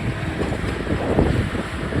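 Wind buffeting the microphone over the low, steady rumble of heavy demolition machinery running.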